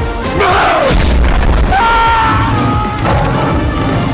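Background music with a deep low boom under it and a falling swoop near the start.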